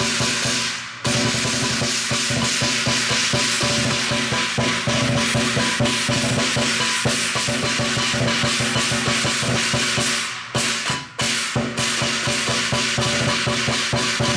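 Chinese lion dance percussion: a large drum beaten in a dense, fast rhythm with crashing cymbals and gong. It breaks off briefly about a second in and twice more a little after the ten-second mark.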